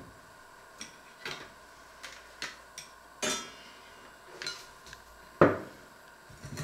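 Kitchenware being handled on a wooden counter: a string of separate clinks and knocks, with a short scraping clatter about three seconds in. The loudest knock comes a bit over five seconds in, as a ceramic mug is set down on the wood.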